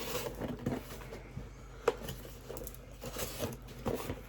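A subscription box and its packaging being handled: soft rustling and light knocks, with one sharper click about two seconds in.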